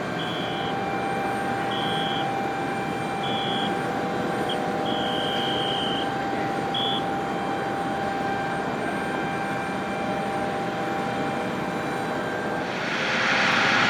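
Jet aircraft noise on an airport apron: a steady whine and rush. A series of short, high electronic beeps sounds over it, with one longer beep, and a louder rushing hiss swells in near the end.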